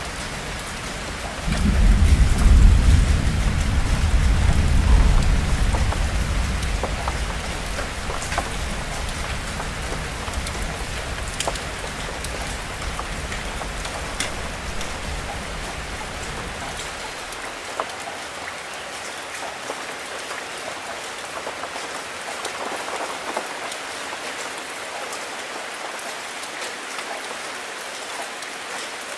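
Steady rain falling, with scattered drop splashes. About a second and a half in, a deep roll of thunder breaks in, is loudest over the next few seconds, and slowly dies away over about fifteen seconds.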